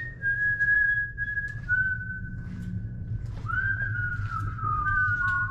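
A person whistling a slow tune of long held notes that step and slide downward, inside a concrete drainage culvert.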